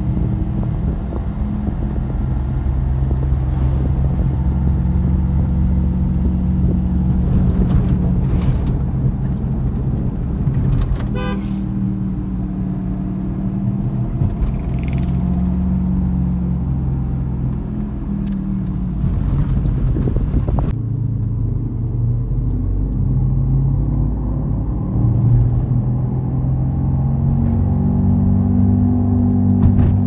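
Inside a moving car's cabin: a steady low humming drone, the 'mmm' sound, over the road noise, with a few small clicks. It comes from the rear left wheel, which the mechanic takes for a worn rear wheel bearing.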